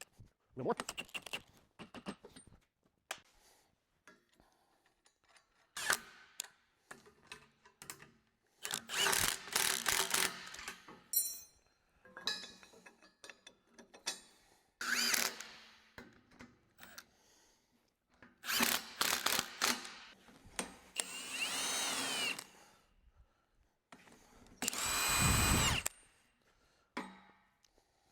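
Steel pipe scraping and clanking against metal hooks as it is hung, in several separate bursts of a second or more; near the end the pipe rings with a clear metallic tone.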